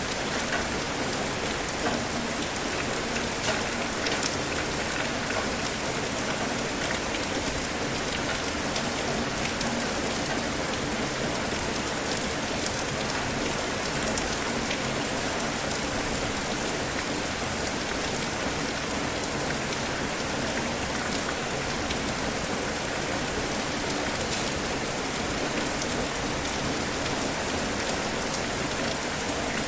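Steady rain falling on a surface, an even hiss thick with fine drop patter and no let-up.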